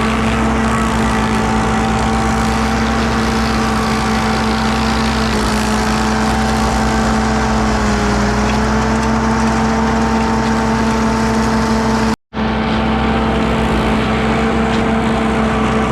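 Machine engine running steadily at a constant speed, its pitch sagging briefly about halfway before it recovers. It cuts out for a moment about three quarters of the way in, then resumes.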